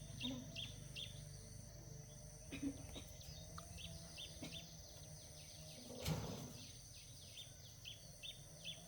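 A bird chirping over and over, short high calls about three a second, over a steady high-pitched insect-like drone and a low background rumble. A single sharp knock sounds about six seconds in.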